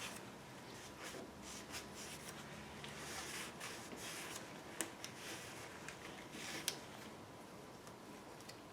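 Quiet handling sounds of hands working on engine parts: soft rubbing and shuffling, with a few light clicks, two of them sharper about five and nearly seven seconds in.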